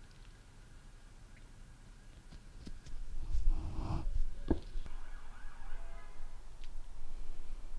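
Quiet garden ambience, broken a little past midway by rustling and a brief knock as a cat brushes past the ground-level microphone; faint wavering tones follow.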